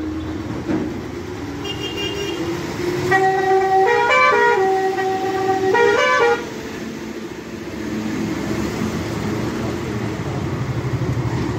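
Bus horn sounding for about three seconds from a few seconds in, a multi-tone musical horn that steps up in pitch twice before cutting off. The bus engine runs underneath.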